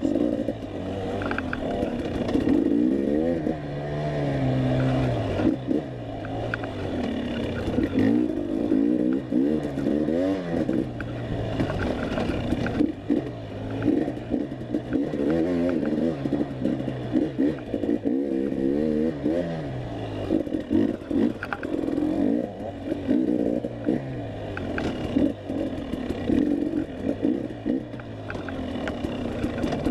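Enduro dirt bike engine pulling in first gear through tight trail, its pitch rising and falling again and again as the throttle is worked on and off, with scattered clatter and knocks.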